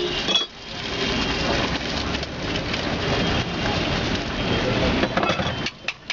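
Egg frying in hot oil on a tawa, a dense steady sizzle that starts about half a second in and dies down near the end, with a few sharp clicks.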